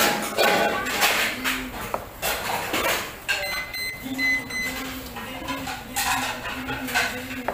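Kitchen clatter: a chef's knife and utensils knocking and scraping on a cutting board in irregular taps. A thin high tone sounds briefly around the middle.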